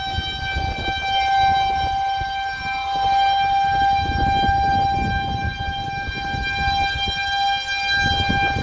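Federal Signal 2001-130 rotating outdoor warning siren sounding a steady single tone at full speed for a tornado warning. The pitch holds level while the sound swells and fades every couple of seconds as the horn turns toward and away.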